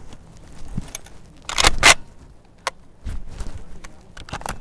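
Footsteps on dry grass with rustling and light clatter from the shooter's gear and shotgun being carried, and a louder pair of rustling knocks about a second and a half in.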